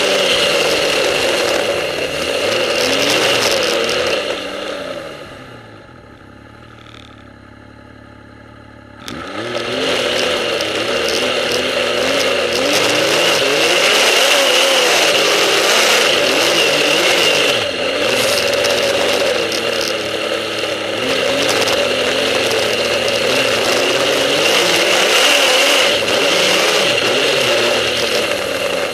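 Snowmobile engine running hard, its pitch rising and falling with the throttle. About five seconds in it eases off to a quieter, steady hum, then comes back on sharply around nine seconds in and runs hard again.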